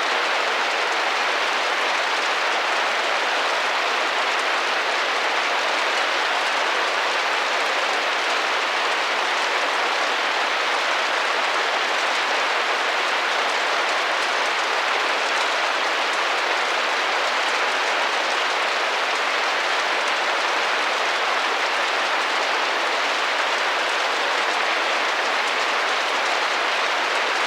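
Steady rain drumming against a glass window pane: a dense, even patter with no single drops standing out.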